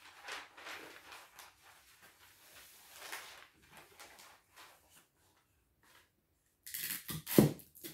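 Christmas wrapping paper rustling and crinkling in short, soft bursts as presents are folded and taped. About seven seconds in comes a louder, sharper cluster as tape is pulled and torn from a desk tape dispenser.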